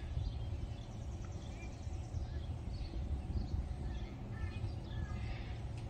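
Low rumble of wind buffeting the microphone, with small birds chirping now and then in the background.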